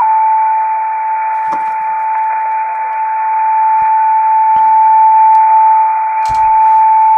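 Elecraft KX2 transceiver receiving in CW mode: one steady, unbroken beat tone from an unkeyed carrier, held at a single pitch over band hiss squeezed into the radio's narrow filter. A couple of faint knocks sound under it.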